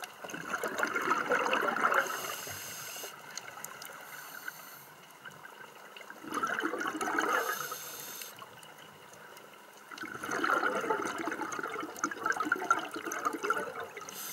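Scuba diver breathing through a regulator underwater: three long bubbling exhalations, with a short hiss of inhalation between them.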